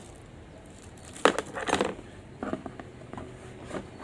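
Clear plastic packaging crinkling as it is handled, in a few sharp crackles, the loudest just over a second in and the last near the end.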